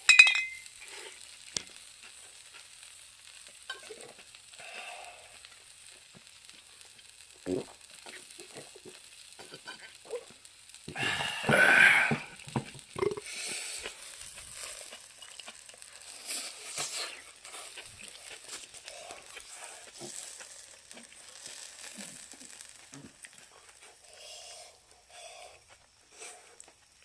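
Chicken thigh sizzling over charcoal on a shichirin grill, a faint steady hiss with scattered small crackles. About eleven seconds in there is one louder sizzling surge lasting about a second and a half.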